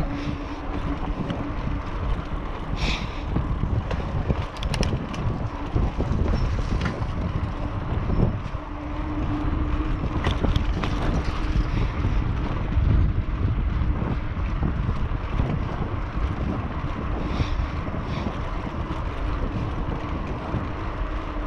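Wind buffeting the microphone of a moving bicycle, with steady tyre rumble and a few short clicks and rattles from the bike as it rolls over rough, cracked concrete.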